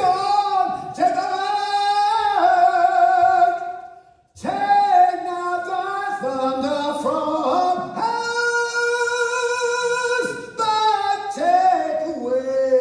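A man singing unaccompanied in a high voice, holding long notes, with a short break about four seconds in.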